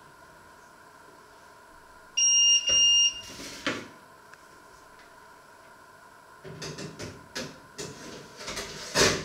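Two loud electronic beeps about two seconds in. Then a run of metallic clatter and knocks from a baking tray and the oven rack and door, ending with a loud knock near the end.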